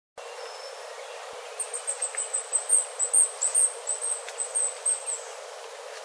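Golden-rumped flowerpecker calling: a series of very high, thin notes, about five a second. The series starts about a second and a half in, runs for nearly four seconds and is loudest in the middle.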